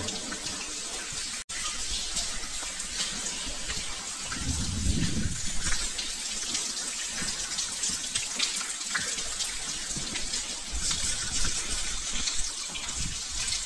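Water seeping through a brick railway tunnel's roof and falling like rain, a steady patter of many drops and streams inside the tunnel.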